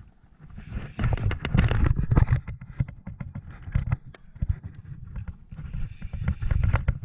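Irregular knocks, bumps and rubbing from a person moving about and handling gear on a sit-on-top kayak, in clusters about a second in and again near the end.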